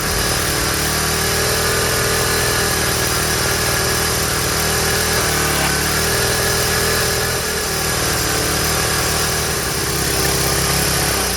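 Small gasoline engine of a pressure washer running steadily, just brought back to life after its gummed-up carburetor was cleaned.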